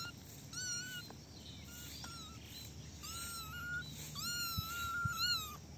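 Young kitten mewing over and over in a high, thin voice: several short mews, then longer drawn-out ones about three seconds in and near the end, the last one wavering in pitch.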